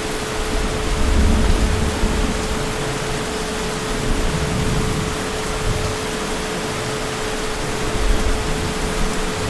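Heavy rain falling as a steady hiss, with low rumbles of distant thunder swelling about a second in and again near the end. A steady low hum runs underneath.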